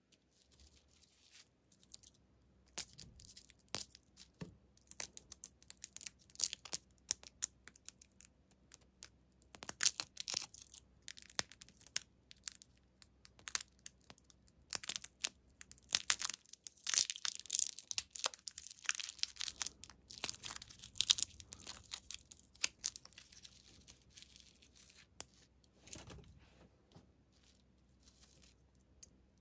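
Crinkly plastic lollipop wrappers being peeled and torn off the candy balls by hand: a long run of sharp crackles and rustles that comes and goes, thickest a little past halfway.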